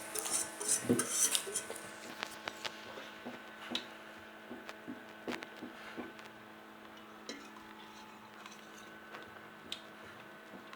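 Kitchen utensil clinking and scraping against a mixing bowl: a busy run of taps in the first two or three seconds, then scattered single clicks.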